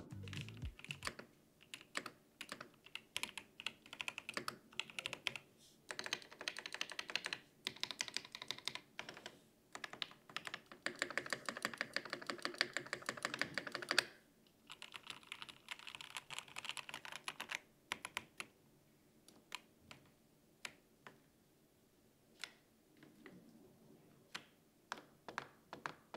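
Typing on a Keychron V1 Max / V5 Max gasket-mount mechanical keyboard with factory-lubed Gateron Jupiter Red linear switches: a fairly quiet, even clatter of keystrokes. Fast runs of typing fill the first part, then thin out after about eighteen seconds into single, separate key presses.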